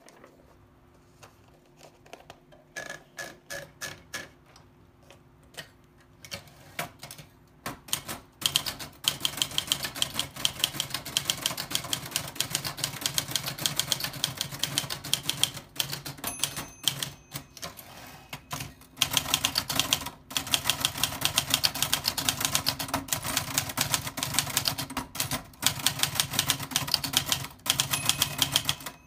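Old typewriter being typed on: a few scattered key strikes at first, then rapid continuous clacking of keys from about eight seconds in, broken by short pauses, with a brief ring about halfway through.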